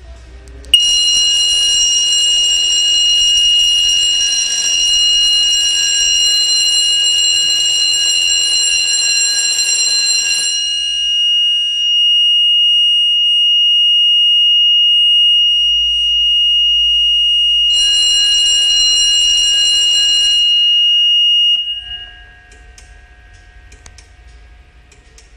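A fire alarm system sounding in alarm: an electric alarm bell ringing together with the Horing Lih AHC-871 control panel's steady high-pitched buzzer tone. The bell cuts out about ten seconds in while the buzzer keeps going, then rings again for a few seconds near the end; the buzzer stops about a second after the bell.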